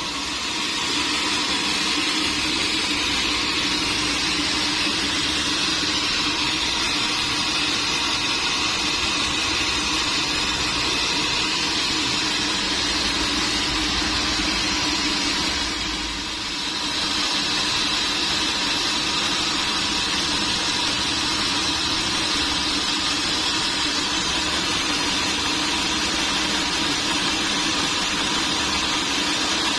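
Sawmill machinery running steadily with an even mechanical drone, briefly dipping in level about sixteen seconds in.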